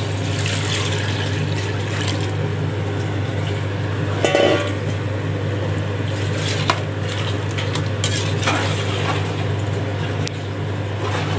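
Water poured into a large metal pot of chicken gravy, then a long metal ladle stirring it in, scraping and clinking against the pot with a few sharp knocks. A steady low hum runs underneath.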